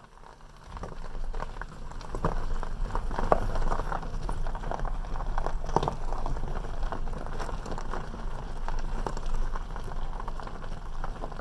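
Vehicle moving off and rolling slowly along a gravel road: tyres crunching over loose gravel with many small crackles and pops, over a low steady hum. It builds up over the first couple of seconds, then holds steady.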